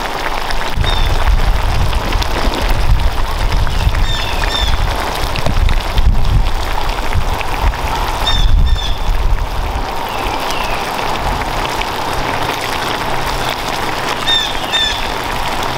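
Seafood sauce with mussels, clams and shrimp simmering in a cast iron skillet: a steady sizzling, bubbling hiss. A low rumble runs through the first half, and a few short high chirps come and go.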